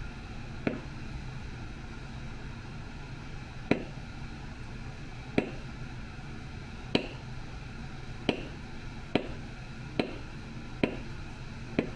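Mallet tapping a checkered backgrounding stamp into tooling leather: about nine single sharp taps, spaced more than a second apart at first and coming quicker near the end, as the tool is walked along to texture the background around a leaf.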